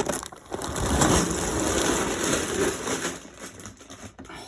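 Large cardboard LEGO set box being pulled open and its contents slid out, a long scraping, rustling cardboard sound that is loudest in the middle and fades near the end.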